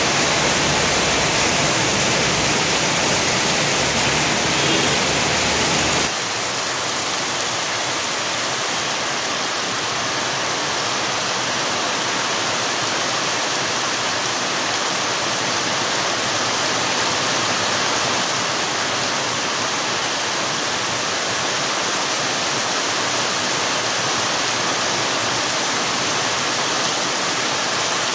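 Heavy rain pouring down, a steady dense hiss. About six seconds in it cuts to a slightly quieter, thinner rain sound with less low rumble.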